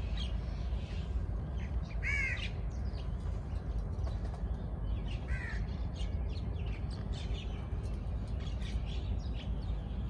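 A crow cawing twice, once about two seconds in and again about five seconds in, over frequent short chirps from house sparrows. A steady low rumble runs underneath.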